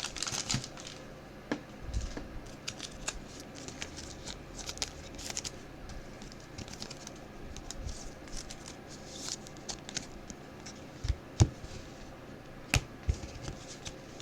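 Trading cards being handled: soft slides, rustles and small clicks as cards are flipped through, with a few sharper taps about eleven to thirteen seconds in.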